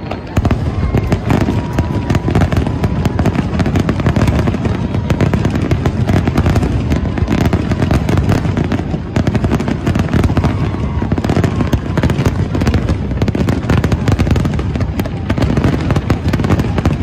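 Fireworks display: aerial shells bursting in a dense, unbroken barrage of bangs and crackles.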